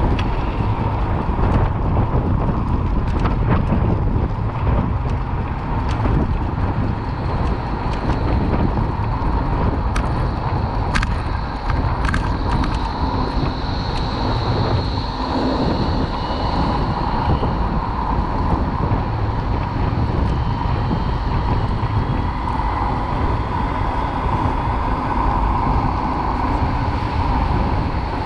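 Steady rush of road and motor traffic noise heard from a bicycle riding along a city street, with a few sharp clicks near the middle.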